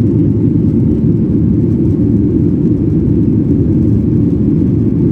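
Jet airliner cabin noise during the climb after takeoff: a steady, loud low rumble of the engines and rushing air, heard inside the cabin.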